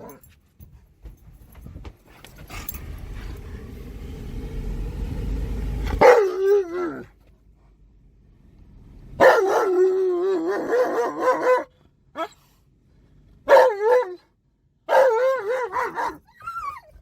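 A low rumble swells for about four seconds. Then an Alaskan Malamute howls and whines in a wavering, talk-like way: a falling howl, a long warbling howl a few seconds later, and shorter yowls near the end.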